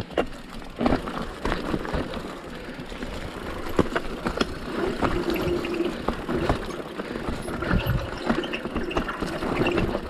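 Mountain bike riding down a rough dirt trail: continuous tyre and rolling noise with frequent sharp knocks and rattles from the bike over bumps.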